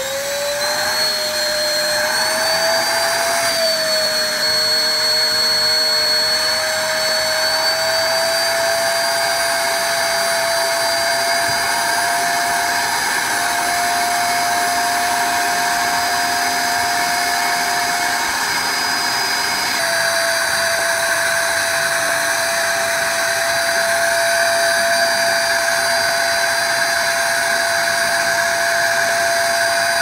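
TACKLIFE 800 W ash vacuum just switched on, its motor whine climbing in pitch over the first several seconds and then running steadily as the nozzle sucks up wood-stove ash.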